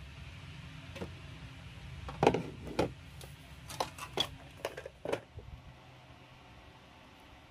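A handful of light knocks and scrapes from a plastic storage bin and cardboard boxes being handled on a wooden shelf, the loudest about two seconds in.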